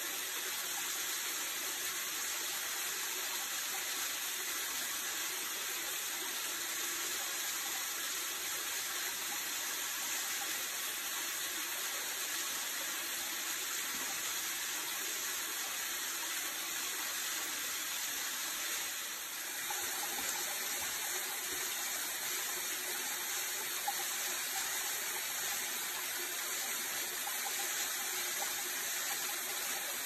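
Small mountain waterfall splashing steadily onto rocks and a shallow pool, an even, unbroken hiss of falling water.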